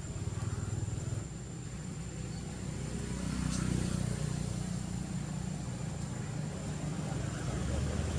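A low, steady engine rumble from a motor vehicle, growing louder about three seconds in and again near the end.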